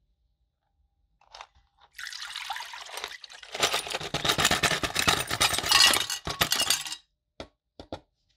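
Dark liquid and small metal lantern parts poured from a plastic tub into a glass Pyrex dish: splashing that builds for about five seconds and stops abruptly, followed by a few short clinks.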